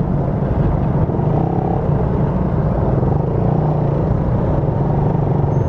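Motorcycle engine running in slow traffic, heard through a microphone inside the rider's helmet: a steady low drone, with a few short higher tones over it.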